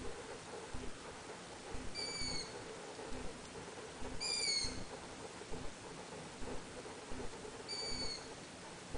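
A bird calling three times, a short, high, slightly falling squeak every two to three seconds, the middle call the loudest.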